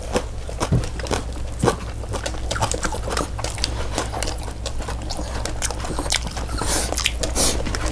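A restless pet dog making small noises, amid many scattered small clicks and taps. Two short hisses come near the end.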